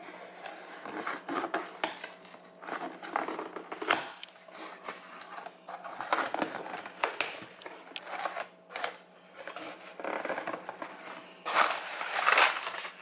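Cardboard shipping box being opened by hand: flaps scraped and pulled apart, then crumpled kraft packing paper rustling and crinkling as it is pulled out, loudest near the end.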